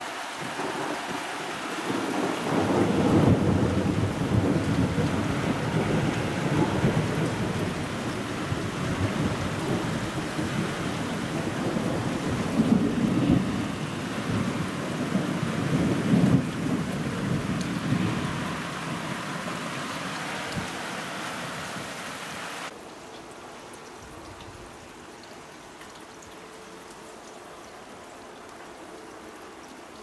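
Thunder rumbling long and low over steady heavy rain, with the loudest rolls a few seconds in and again around the middle. The rumbling dies away, and about 23 seconds in the sound drops abruptly to a quieter, steady hiss of rain.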